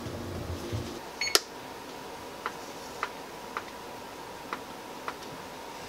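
Electric oven control keypad beeping as its buttons are pressed to set the bake temperature: one louder beep with a click about a second in, then five short beeps spaced roughly half a second to a second apart as the temperature is stepped up.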